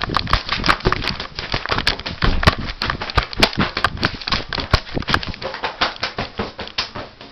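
Handling noise on the recording phone's microphone: rapid, irregular clicks and rustling as it is rubbed and knocked against hand or clothing.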